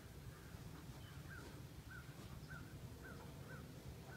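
A bird calling in a quick run of short, identical chirps, about one every half second, over a low steady rumble.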